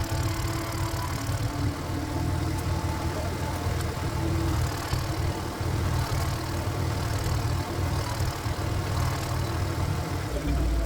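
Single-cylinder diesel engine of a walk-behind power tiller running steadily at a low, even pulse.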